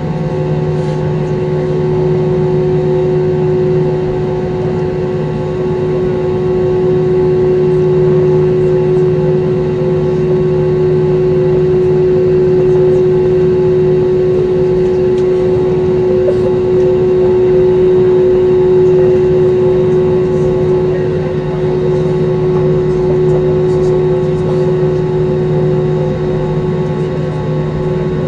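Airbus A320's jet engines heard from inside the cabin as the airliner taxis after landing: a loud, steady hum with a constant droning tone that swells slightly in the middle.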